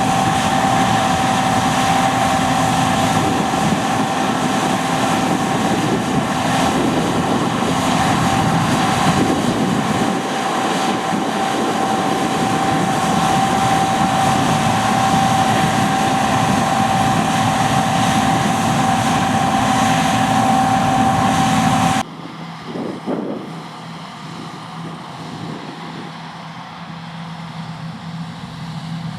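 John Deere T560 combine harvester running steadily while working in a barley crop, a loud mechanical din with a constant high whine over it. Some three-quarters of the way through, the sound drops suddenly to a quieter, lower engine hum.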